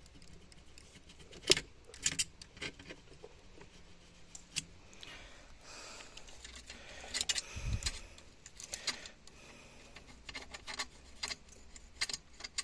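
Scattered small clicks and scrapes of a knife trimming old silicone sealant from a tractor cab's window frame, with one dull thump about three quarters of the way through.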